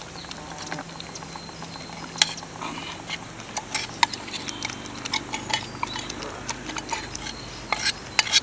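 A metal spoon scraping and tapping against a small metal camping pot as diced bacon is scraped out into a pot of soup. The clicks and scrapes are irregular, sparse at first and busier from about three seconds in.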